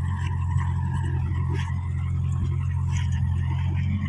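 Caterpillar E70B excavator's diesel engine running with a steady low drone as the machine works in a flooded pond.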